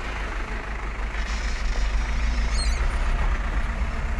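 A 4x4 truck's engine running at low speed, a steady low rumble heard from inside the cab as the truck creeps forward. A brief high chirp about two and a half seconds in.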